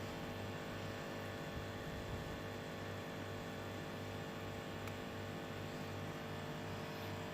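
Steady electrical mains hum with a faint low throb pulsing about twice a second.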